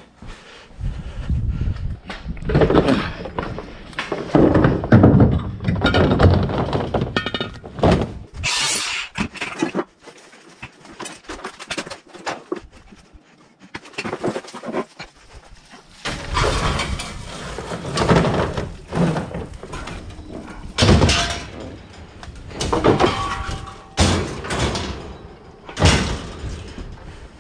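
Metal clanks, bangs and scraping as scrap air-conditioner condenser units are lifted, dragged and set down in a pickup truck bed. The impacts come at irregular intervals, with a quieter stretch about halfway through.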